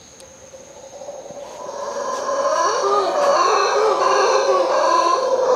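A troop of howler monkeys calling together: many overlapping, wavering calls that swell from faint about a second in to loud by about two seconds. The sound is weird, like a mix of chicken and dog.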